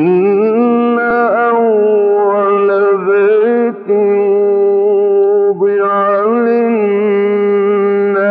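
A man's solo voice chanting Quran recitation in a slow, melodic style. He holds long ornamented notes and breaks off twice for a breath, a little before and a little after the middle.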